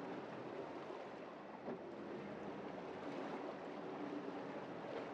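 Four Mercury 600 hp V12 Verado outboards idling, very quiet: a faint low hum under water lapping at the hull. A single brief click comes about a second and a half in.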